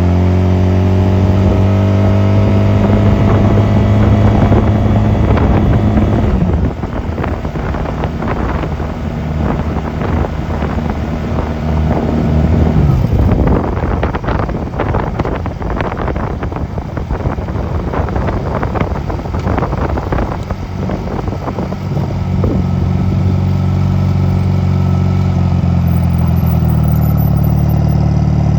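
Honda 250cc motorcycle engine running under way, a steady engine note for the first six seconds. The engine note then drops and gusty wind buffeting on the microphone takes over for about fifteen seconds before a steady engine note returns near the end.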